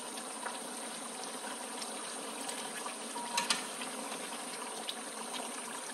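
Young jackfruit curry simmering in a pan, a steady bubbling hiss, as a wooden spatula stirs through the jackfruit pieces in the spiced liquid, with a couple of light knocks about three and a half seconds in.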